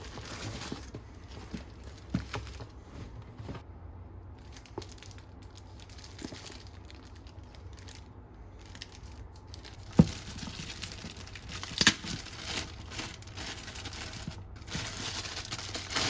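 Product packaging being handled and opened: crinkling and tearing of wrapping, with scattered sharp knocks, the loudest about ten seconds in and another near twelve seconds.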